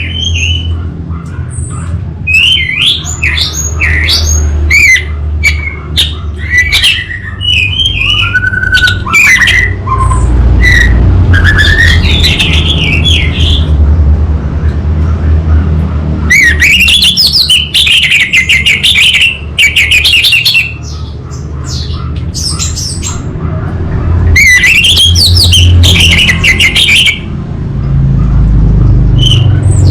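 Orange-headed thrush singing: bursts of quick, varied high phrases broken by pauses of a few seconds, over a steady low rumble. It is a lure song meant to set another thrush singing in reply.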